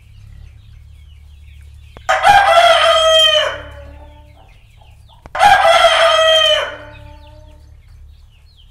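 A rooster crowing twice, each crow about a second and a half long with a dropping tail, about three seconds apart. Chicks cheep faintly in the background.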